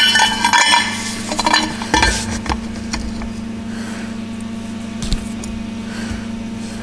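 Steel exhaust pipe and its flange clinking and rattling as they are handled and set in a bench vise, with the knocks mostly in the first two or three seconds, over a steady electrical hum.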